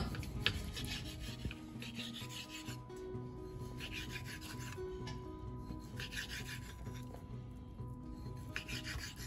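A kitchen knife sawing through raw beef and scraping on a wooden cutting board, cutting a bottom round roast into chunks in a series of short strokes.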